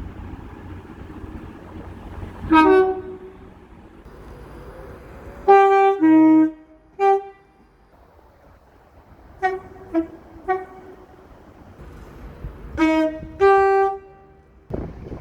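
A train's two-tone horn sounding in a series of blasts, some short toots and some longer calls that step between a high and a low note, over the steady rumble of the train.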